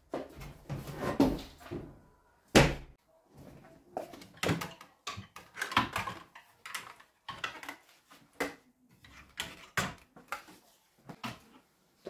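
Clothes and hangers being handled in a wardrobe: fabric rustling and irregular knocks and clicks against the wardrobe, with one loud thud about two and a half seconds in.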